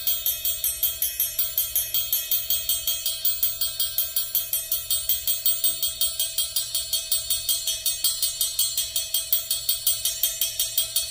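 Amplified triangle tapped with a metal beater in a steady, even stream of about five strokes a second, each stroke bright and ringing, over a steady underlying tone.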